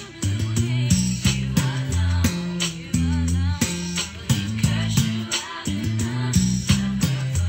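Electric bass guitar played fingerstyle, a busy low bass line of short plucked notes, over a recorded R&B track with singing and drums.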